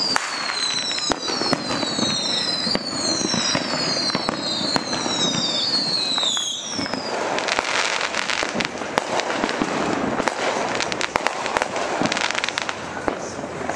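Fireworks going off: a dense run of bangs and crackling, with a string of high, falling whistles through the first half.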